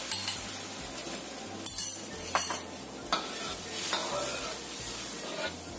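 Sauce and water sizzling in a hot, oiled wok of sautéed aromatics while a metal ladle stirs it, with a few sharp scrapes of the ladle against the wok.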